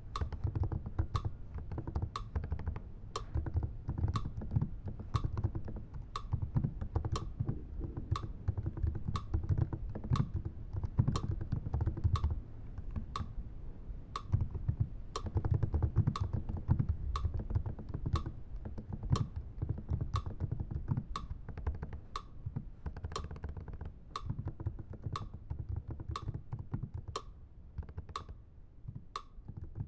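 Computer keyboard keys struck by fingers, clicking at an even pace of about two a second, over a low, uneven rumble.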